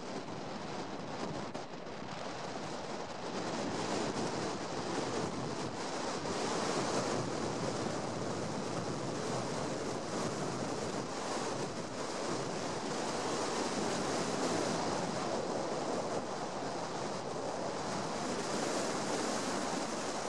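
Wind and road noise from a moving car, heard through an open window: a steady rush that swells and eases every few seconds.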